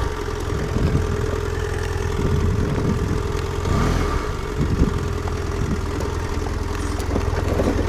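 Adventure motorcycle engine running steadily at low revs while the bike rolls slowly along a dirt trail.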